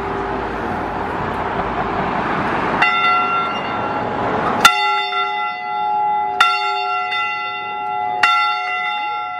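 A single church bell tolling: four strokes about two seconds apart, the first nearly three seconds in, each ringing on with a steady hum into the next. Before the first stroke the hum of the previous stroke lingers under a rushing noise.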